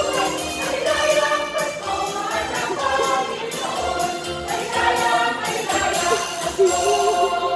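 Choir singing a Christmas carol with instrumental accompaniment, and bells jingling in a steady rhythm.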